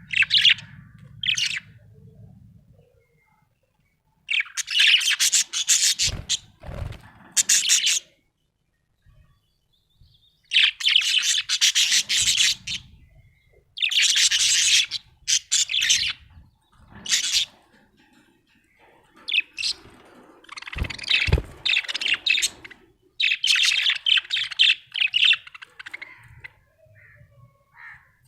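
Budgie chirping in rapid bursts of two to four seconds with short pauses between. A few brief low thumps come about a quarter of the way in and again past two-thirds.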